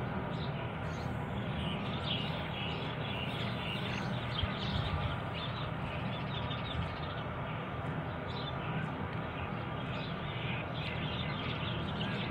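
A flock of broiler chickens in a shed: many overlapping short peeps and chirps over a steady low rumble.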